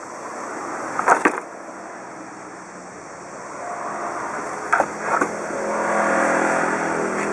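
Two-stroke chainsaw engine running, growing louder about halfway through and then holding steady, with a few short knocks.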